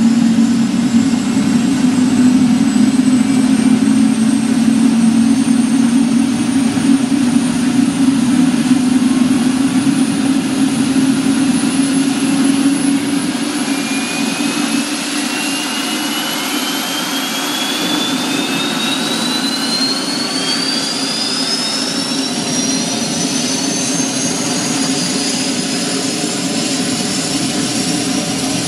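Twin turboshaft engines of an AS355 F2 Ecureuil 2 TwinStar helicopter on start-up as the main rotor spins up. A steady low hum dominates the first half, and from about halfway a turbine whine rises steadily in pitch.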